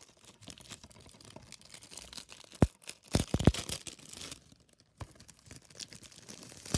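Plastic shrink wrap crinkling and tearing as it is peeled off a DVD case, with a few sharp plastic clicks near the middle.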